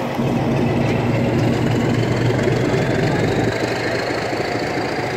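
Diesel locomotive engine running steadily as the passenger train moves past. A faint high whine climbs slowly in pitch.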